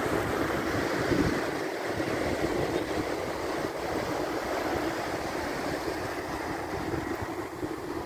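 Atlantic surf washing up on a sandy beach in a steady rush of breaking waves, with wind buffeting the microphone, strongest in the first second or so.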